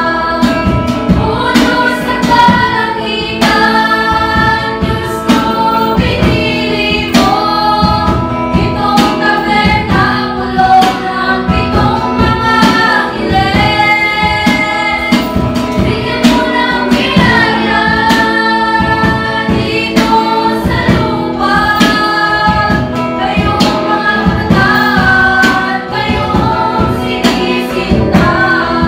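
A mixed choir of young women and men singing a hymn in Tagalog, with a strummed guitar keeping a steady rhythm underneath.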